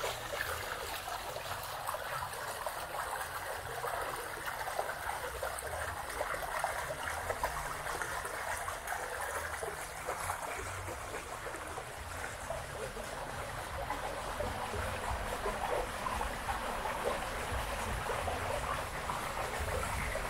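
Steady trickling of running water, with a low fluctuating rumble underneath.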